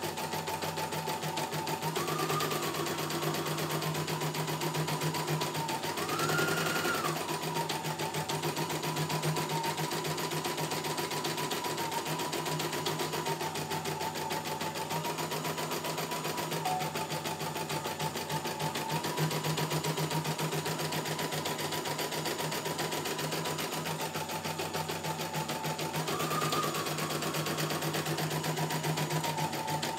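CNY E900 computerised embroidery machine stitching a design: a fast, even patter of needle strokes over the motor's steady whine. The whine rises briefly in pitch a few times, near the start, about six seconds in, and near the end.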